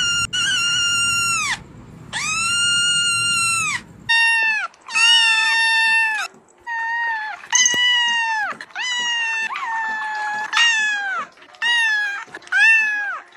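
A cat crying: two long, high, even-pitched cries. Then, from a different cat, a rapid run of about ten short meows, each starting with a quick drop in pitch.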